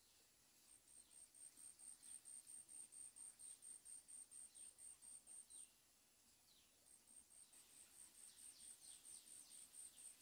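An insect, cricket-like, chirping in a fast, even high-pitched pulse about five times a second. It breaks off briefly near the start and again for over a second midway before starting up again.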